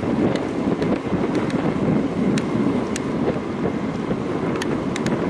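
Wind buffeting the microphone: a steady, fluctuating low rumbling rush, with a few faint sharp ticks about two and a half, three, and four and a half seconds in.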